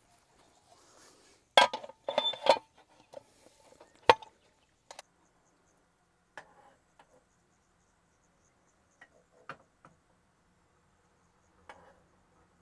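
Small hard objects clinking and clattering as they are handled: a quick cluster of clinks about two seconds in, a single sharp knock about four seconds in, then a few faint, scattered ticks.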